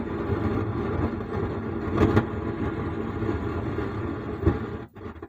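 Speaker box driven by a Sound Standard CA20 amplifier, giving a steady crackling buzz over a low hum even with the volume at zero, with two louder cracks. The noise drops away near the end as the amplifier is switched off. The fault is traced to failed LM833 op-amp ICs on the amplifier's back-panel board.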